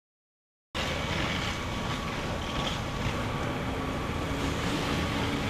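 A house fire burning: steady noise of the flames, with a faint steady hum over it, starting abruptly a little under a second in.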